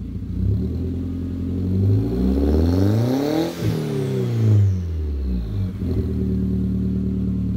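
Turbocharged 1.8-litre four-cylinder (VW AWP 1.8T with K03s turbo on a Unitronic stage 2 tune) heard at the dual-tip exhaust, revved once from idle: the pitch climbs steadily for about three seconds, then falls back and settles to idle.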